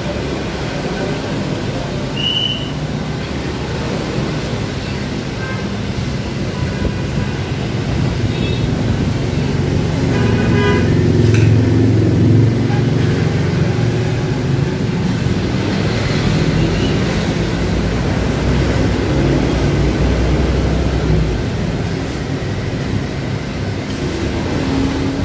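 Street traffic noise, with a low rumble that grows louder about ten seconds in as a vehicle passes, and a few short horn-like tones.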